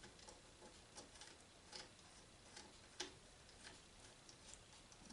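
Faint, scattered light clicks and taps of small metal engine parts and tools being handled, with one sharper click about three seconds in.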